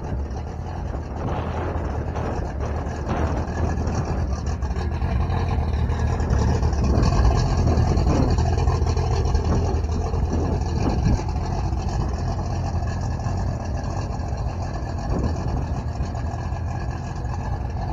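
A car engine running, a low steady rumble that gets a little louder in the middle.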